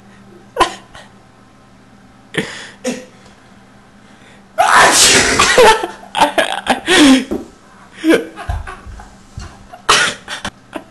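A person sneezes loudly, a long burst about four and a half seconds in, followed by several shorter bursts.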